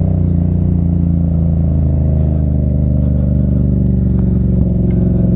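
Vehicle engine running steadily while driving, a continuous low drone. A few faint light clicks come about four to five seconds in.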